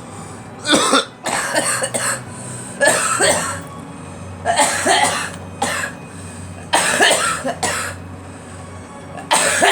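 A girl coughing repeatedly, in a series of short coughing fits.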